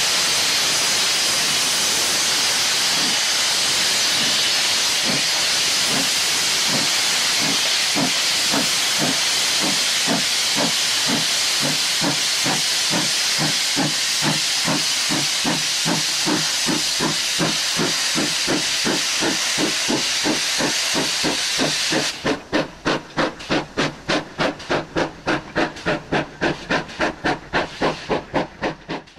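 Ex-Port Talbot Railway 0-6-0 saddle tank steam locomotive No. 813 hissing loudly with steam pouring from its cylinder drain cocks, then starting away. Its exhaust chuffs begin a few seconds in and quicken steadily, to about three a second by the end.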